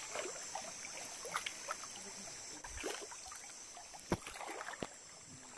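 Flood-swollen creek running fast after heavy rain, a steady rush of water with gurgles and splashes. Two sharp knocks stand out about four seconds in.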